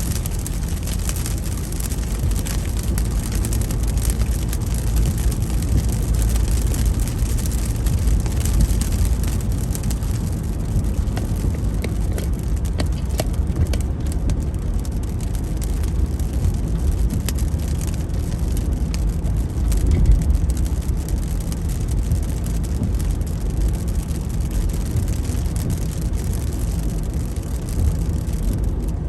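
A car driving on a highway: the steady low rumble of engine and tyres on the road, swelling slightly about two-thirds of the way through.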